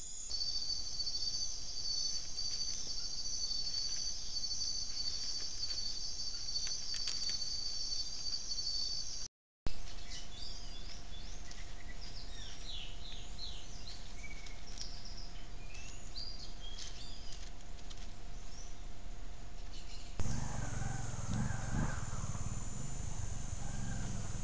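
Steady high trilling of night insects, then, after a brief dropout, daytime birds calling over a steady hum. About twenty seconds in, a motorcycle engine passing near a trail camera, a low fluctuating engine note that lasts to the end.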